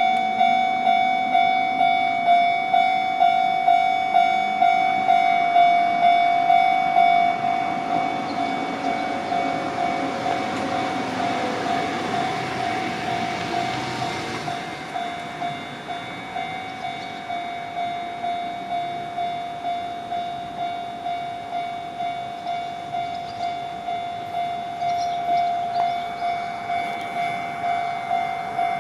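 Japanese railway level-crossing alarm ringing its repeated electronic bell, about two strikes a second. A train passes over the crossing, its running noise swelling from about eight seconds in, loudest around twelve to fourteen seconds, then fading.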